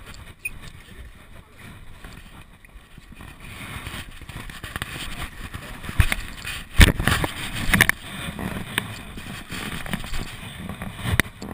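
BMX bike ridden through a concrete skate bowl, heard from a camera strapped to the rider: tyres rolling on concrete with a rushing of air that builds after about three seconds, and a cluster of loud knocks and clatters about six to eight seconds in.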